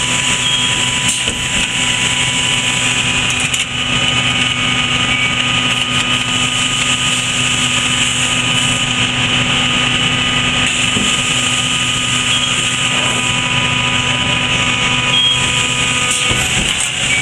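Press brake running with a steady machine hum carrying several constant tones, and a few faint clicks.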